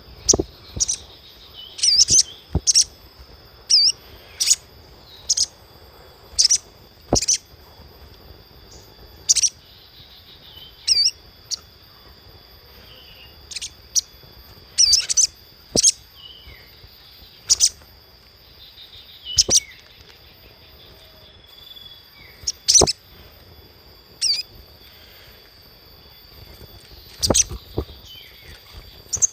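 Crimson sunbird calling: sharp, high chirps repeated irregularly, one every half second to two seconds, over a faint steady high-pitched hum.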